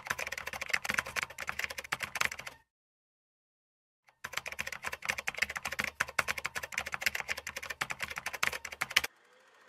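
Rapid keystroke clicks of typing, a sound effect for on-screen text being typed out. The clicks come in two runs with a silent pause of about a second and a half between them, and stop shortly before the end.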